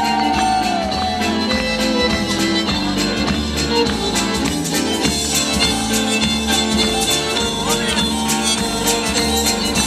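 Dance music played over the sound system, with a steady beat.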